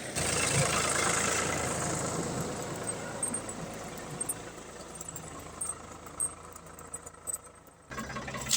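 Ford 4600 tractor engine running. A noisy spell at the start fades over about two seconds, the sound grows quieter with scattered clicks, and the engine's steady hum comes back suddenly near the end.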